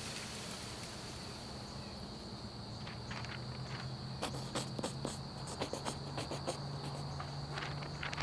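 Crickets chirping steadily, with a low hum underneath and a run of light clicks from about three seconds in.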